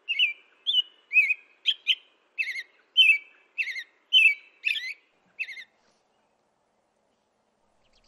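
American robin singing: a run of about a dozen short, clear whistled notes that rise and fall in quick phrases. The song stops about five and a half seconds in.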